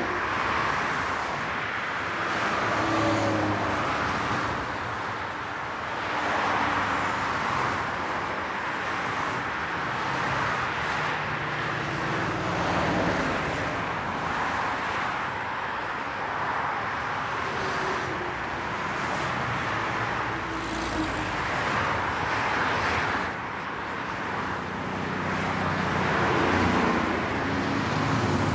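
Street traffic: cars passing one after another, the tyre and engine noise swelling and fading every few seconds.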